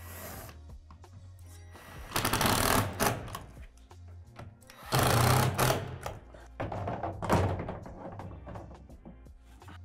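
Cordless drill/driver running in several short bursts, driving screws into the shed's plastic roof panels. Background music plays underneath.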